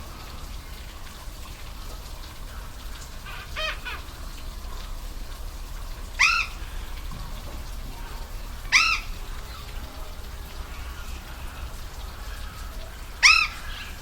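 Steady rush of a waterfall with four short animal calls spaced a few seconds apart, each a quick rise and fall in pitch; the last ones are the loudest.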